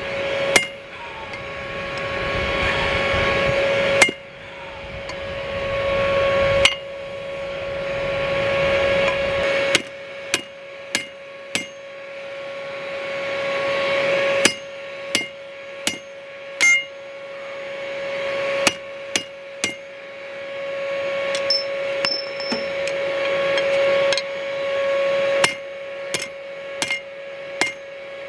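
Hammer blows on a hand-held punch driving a hole through a red-hot steel bar on an anvil, each blow a sharp metallic strike. The blows come a few seconds apart at first, then in quicker runs of three to five. A steady hum runs underneath throughout.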